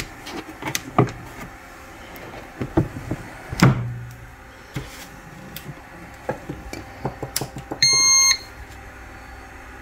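Clicks and knocks as the bread pan is seated in a bread machine and the lid shut, the heaviest a dull thud a few seconds in. About eight seconds in, the bread machine gives one short electronic beep as its Menu button is pressed.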